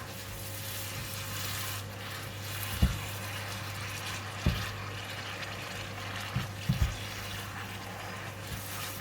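Bean sprouts and pork slices sizzling in a pan as a steady hiss over a low hum, with a few dull knocks about three, four and a half, and six and a half to seven seconds in.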